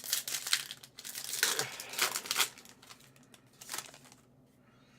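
Foil trading-card pack wrapper crinkling and tearing in short bursts as it is opened, falling quiet in the last second.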